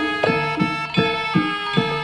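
Javanese jaranan ensemble music, instrumental: a steady drum beat of short strokes whose pitch drops quickly, over ringing metallic tones.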